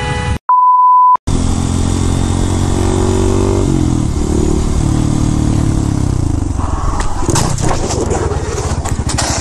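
A short steady beep about half a second in, then a motorcycle engine running, its pitch shifting down around four seconds in. Around seven to eight seconds in comes a cluster of sharp knocks as the bike goes down on a slippery road.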